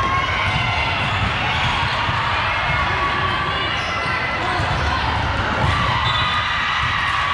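Basketball bouncing on a court during play, repeated low thuds over a steady hubbub of voices, with short high squeaks scattered throughout.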